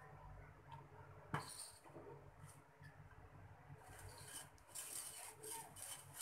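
Metal spoon stirring boiled milk in a steel pot: faint scraping and swishing, with one sharp clink of the spoon against the pot about a second in and busier scraping strokes in the last second and a half.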